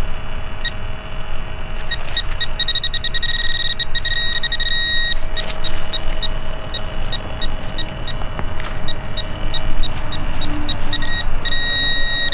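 Handheld metal-detecting pinpointer in a dig hole, beeping two to three times a second and switching to a continuous tone from about two and a half seconds to five seconds in and again near the end, as it comes right over a metal target. Under it runs a low rustle of dirt being handled.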